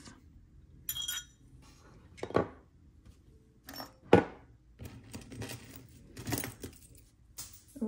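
Jewelry being handled and set down: scattered light metal clinks and taps, the sharpest about four seconds in, with soft handling noise between.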